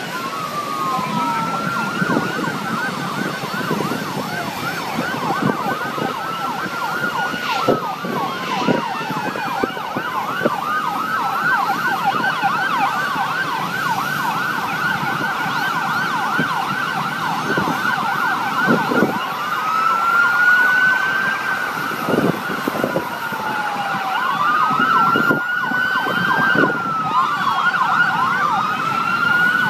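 Several emergency-vehicle sirens sounding at once, their slow rising-and-falling wails overlapping with fast yelping sweeps throughout, with a few short low thumps mixed in.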